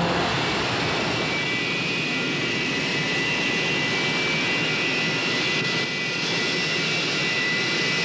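Steady roaring rush of noise with a thin high whine held above it, an engine-roar sound effect standing for an engine running at extreme heat.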